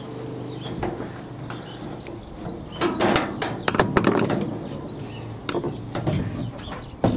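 Sheet-metal outer casing of a microwave oven being handled and worked loose: scraping, rattling and knocking of thin metal, with a sharp knock near the end.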